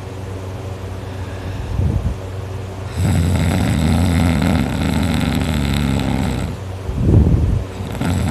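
A teenager snoring loudly in sleep: a long, low, rattling snore for a few seconds, then a short, louder snore about seven seconds in.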